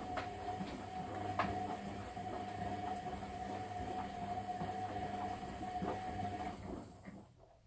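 Bendix front-loading washing machine tumbling a wet load in its drum: a steady motor hum and whine with soft knocks as the clothes drop. About seven seconds in the motor stops and the drum coasts to rest, the pause between tumbling turns of the wash.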